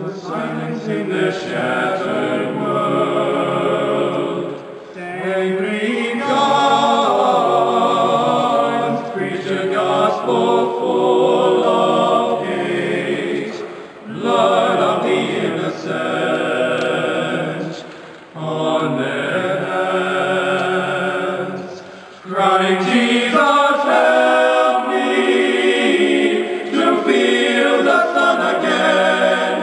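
Small male vocal ensemble of eight young men singing a cappella in harmony, in sustained phrases with brief breaks between them.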